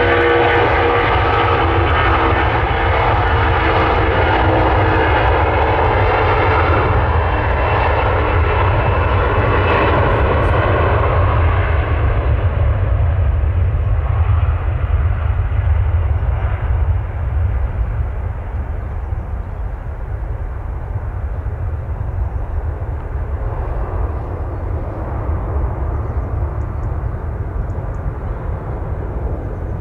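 Boeing 757's twin jet engines at full takeoff power as the airliner rolls past down the runway: a strong whine of several steady tones over a deep rumble. After about twelve seconds the whine fades as the aircraft lifts off and climbs away, leaving a duller rumble that slowly gets quieter.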